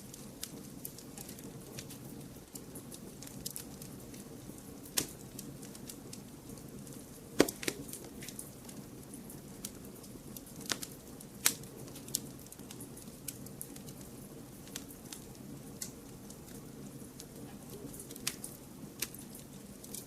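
Wood fire crackling: a steady low hiss of burning with scattered sharp snaps and a few louder pops.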